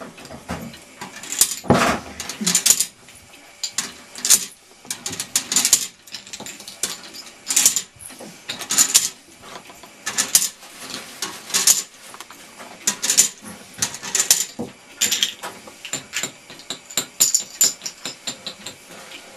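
Plastic Connect Four discs being dropped into the upright grid, each one clattering and rattling briefly down its column. The drops come again and again, a second or two apart, with short pauses between them.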